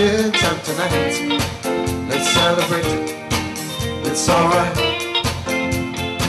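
Live band playing upbeat disco music: a drum kit with cymbals keeps a steady beat under guitar and keyboard, with a sung vocal line over it.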